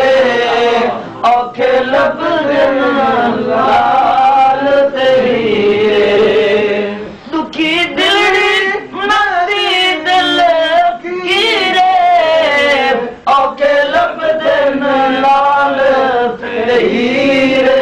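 A man singing a Punjabi devotional song in a slow, chant-like style, holding long notes with wavering ornaments and pausing briefly for breath between phrases.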